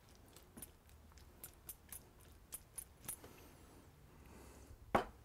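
Spatula and ceramic saucepans clicking and scraping as a filling is stirred and sauce is scraped from one pan into the other: a run of light clinks, with one louder knock near the end.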